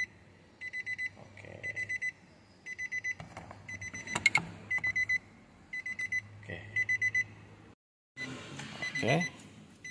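Electronic beeper sounding in quick groups of about four short high beeps, repeating a little under once a second. A sharp click about four seconds in.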